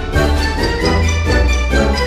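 Background music, its notes changing quickly over a pulsing bass line.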